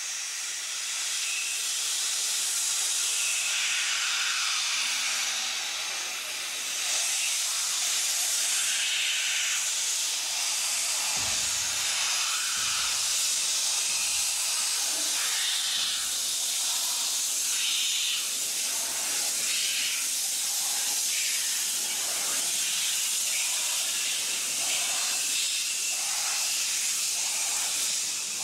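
Rhaetian Railway G 3/4 No. 11 "Heidi" narrow-gauge steam locomotive venting steam with a loud, steady hiss. A few dull thumps come near the middle.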